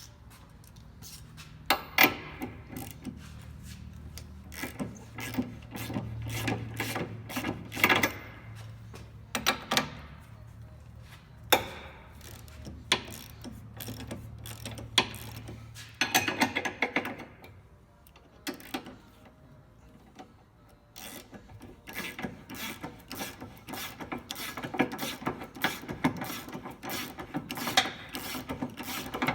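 Hand socket ratchet clicking in quick runs of strokes, with several louder sharp metallic knocks among them.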